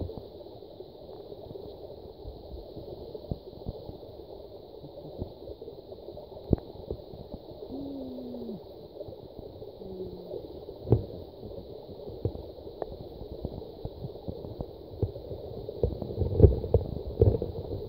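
Muffled underwater ambience heard through a submerged smartphone's microphone in fresh water: a low rumbling water noise with scattered sharp clicks and knocks, busier near the end.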